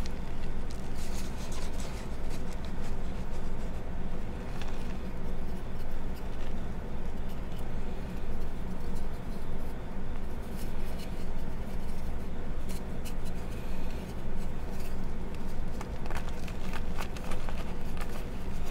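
Reformed gym chalk discs crushed and squeezed by hand: continuous powdery crunching and crumbling, dense with small crackles. A steady low hum runs underneath.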